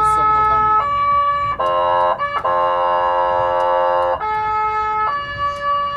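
Fire engine's two-tone siren switching between a higher and a lower note about once a second, broken by a long chord-like multi-tone horn blast from about a second and a half in, cut briefly, then held for about two more seconds before the two-tone siren resumes.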